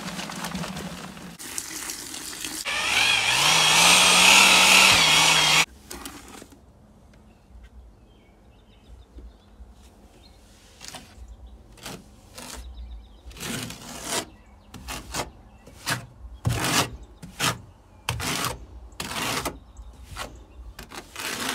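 A drill runs for a few seconds mixing mortar in a plastic bucket, its pitch rising and then holding before it cuts off suddenly. After that comes a run of short scraping strokes as a notched trowel spreads the mortar onto a plywood wall.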